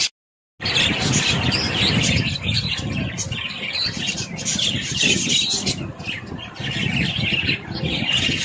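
Many budgerigars chattering and chirping together in a dense, continuous twitter over a low rumble. The sound drops out completely for about half a second just after the start.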